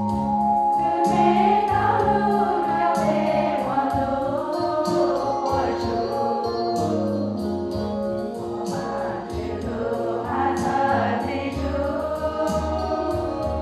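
Women's choir singing a hymn in Hmong over low held accompaniment notes that change every second or two.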